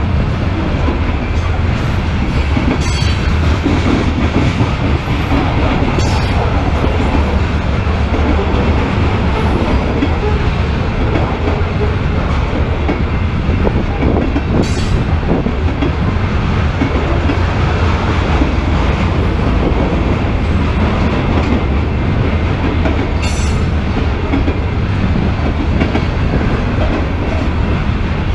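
Freight train of covered hopper cars rolling past close by at speed: a steady, loud rumble and clatter of steel wheels on the rails, with a few brief high-pitched wheel squeals.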